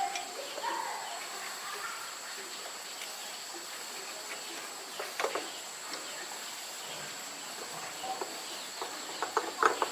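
Steady high insect chirring, with a few sharp clicks about halfway and a quick run of louder clicks and taps near the end.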